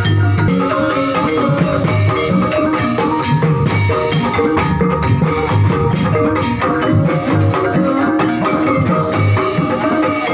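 Javanese gamelan playing accompaniment for a kuda kepang horse dance: ringing bronze kettle gongs and gongs over a regular beat of low hand-drum strokes.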